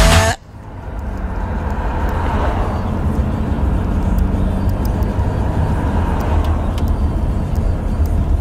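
The song cuts off sharply just after the start. Then comes the steady low rumble and hiss of a car's interior, with a low hum and a few faint ticks.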